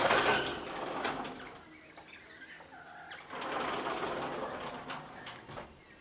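Birds at a feeding spot making a rapid fluttering clatter in two bursts: one at the start, and a longer one from about three seconds in.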